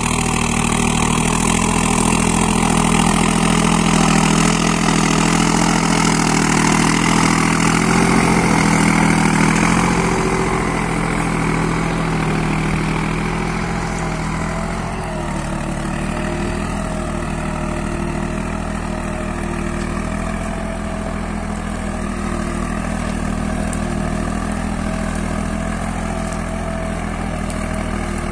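Deutz-Fahr Agrolux 70 tractor's diesel engine running steadily under load while pulling a three-bottom mouldboard plough through the soil. It is louder for the first ten seconds or so, then settles a little quieter as the tractor moves away.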